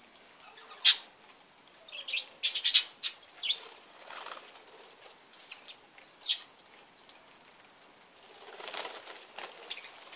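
Budgerigars flapping their wings and chirping in short, sharp bursts. The loudest come about one second in and in a cluster from about two to three and a half seconds in.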